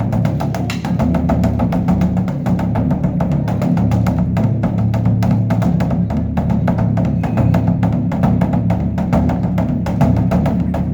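Large Korean Buddhist temple drum (beopgo) beaten with two sticks in a fast, unbroken run of strikes over a steady low boom, with sharp wooden knocks among the strokes.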